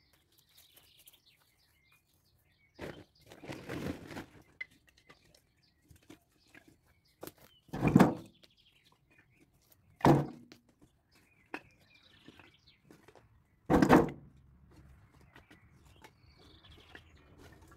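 Firewood logs being set down and stacked on a woodpile: a few loud wooden thunks several seconds apart, with lighter knocks and shuffling between them. Birds chirp faintly in the quiet gaps.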